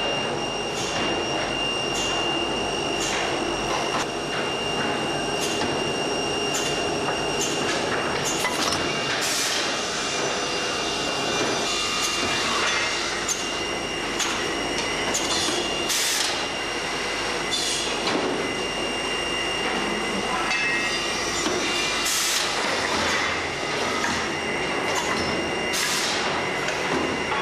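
A CNC wood-cutting line running, with a steady high-pitched whine over the machine noise. Sharp clicks come about once a second, and every few seconds there is a short, louder rush of noise.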